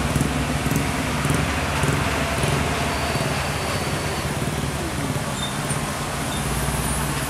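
Road traffic of heavy trucks and motorcycles on a wet road: a steady low engine drone under the hiss of tyres, with a deeper engine note coming in near the end.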